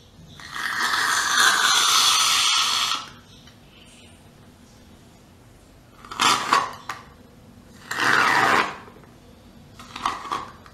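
Aerosol can of shaving foam spraying foam in hissing bursts: one long spray of nearly three seconds, then three shorter spurts about six, eight and ten seconds in.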